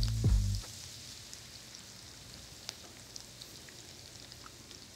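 Faint, steady sizzling with scattered small pops and crackles, as of food frying in pans on the stove. A brief low hum cuts off about half a second in.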